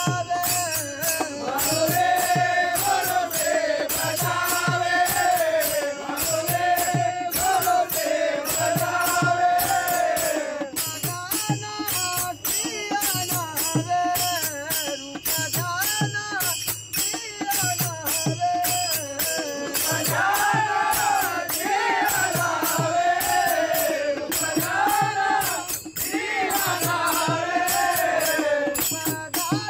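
Group of men singing a Marathi devotional bhajan together, the melody rising and falling in long sung phrases. Hand claps and small percussion keep a steady beat under it.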